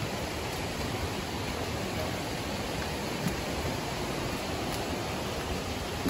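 Steady rushing of a forest stream and waterfall, with a couple of faint clicks.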